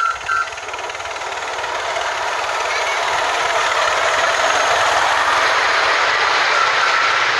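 Miniature live-steam locomotive and its passenger cars running across a steel girder bridge, the rapid clatter of wheels on the rails growing louder as the train draws close and passes. A short high toot comes just at the start.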